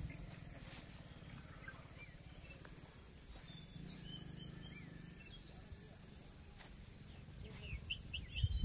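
Faint outdoor ambience: birds chirping now and then, most clearly around the middle, over a steady low rumble.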